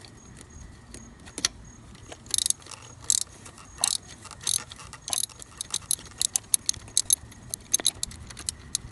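Ratchet wrench with a 13 mm socket clicking on an alternator mounting bolt: a few scattered metallic clicks, then a quicker run of sharp clicks in the second half as the ratchet is worked back and forth.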